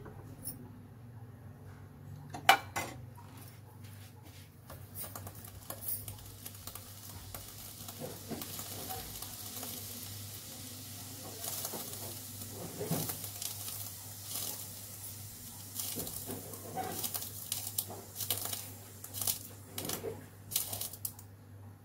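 Cooking oil heating in a non-stick kadai on a gas burner, a steel ladle clanking once sharply against the pan about two and a half seconds in. From about halfway the hot oil sizzles and crackles, the crackles coming thicker near the end.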